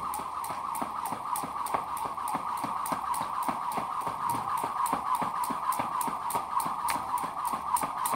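Jump rope skipping, its rope slapping the ground in a steady rhythm of about three to four strikes a second, over a continuous background noise.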